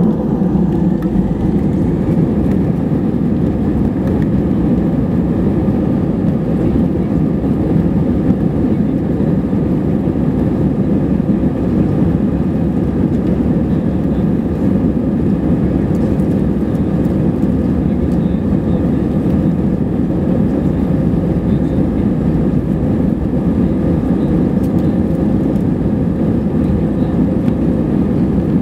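Steady cabin noise inside an Airbus A320 taxiing on the ground: the jet engines running at low power with a deep, even hum and faint steady whining tones above it.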